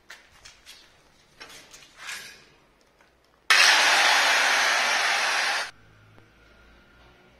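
Handheld angle grinder run against a granite strip in one burst of about two seconds, starting and stopping abruptly. Before it come a few light taps and handling knocks.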